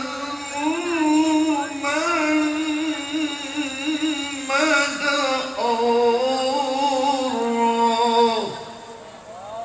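Male Qur'an reciter chanting in the melodic tilawah style into a microphone over a PA system, holding long notes with ornamented turns and wavering pitch. The phrase ends about eight and a half seconds in and the voice drops away.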